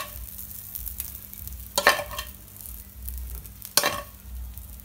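Metal spoon scraping couscous and vegetables out of a metal pan onto a plate, with two sharp scrapes against the pan, one about two seconds in and one near the end.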